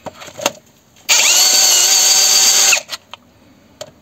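Cordless drill run once for under two seconds, its bit deepening a blind hole in a KAMAZ engine casting so that it can be tapped for a thread. Starts and stops abruptly at steady speed.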